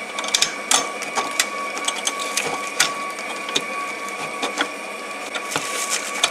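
Irregular clicks and taps of small metal and plastic parts being handled with gloved hands at a car's 12-volt battery terminal block, over a steady high whine.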